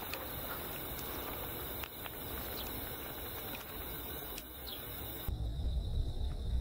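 Steady high-pitched chorus of field insects with a few short, faint bird chirps. About five seconds in it gives way to a low rumble of wind on the microphone.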